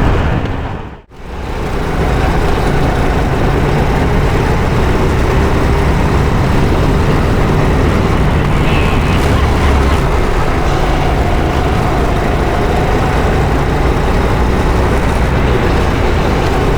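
Go-kart engine running at speed, a steady rumble with a faint engine whine that wavers slightly in pitch. The sound drops out briefly about a second in.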